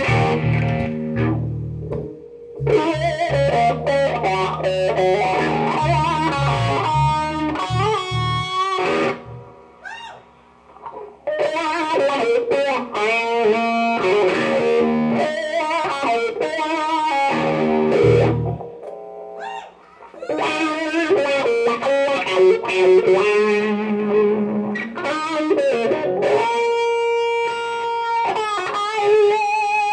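Live electric guitar and electric bass playing blues-rock: the guitar plays lead lines with bent, wavering notes while the bass plays underneath. The music drops briefly twice, and the bass falls away a little past halfway, leaving mostly the guitar with long held notes near the end.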